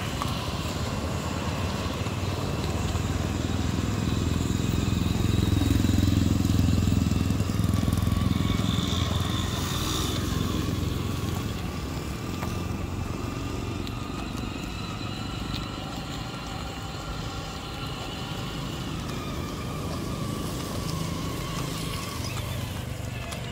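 Children's electric ride-on buggy driving over rough asphalt: its small electric motors whine steadily and its wheels rumble and crunch on the surface. A deeper rumble swells and fades in the first half.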